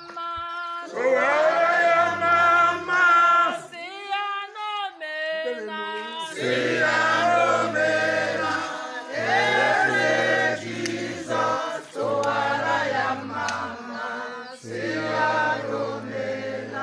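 A group of people singing together unaccompanied. A single voice starts, and others join about a second in, holding long notes.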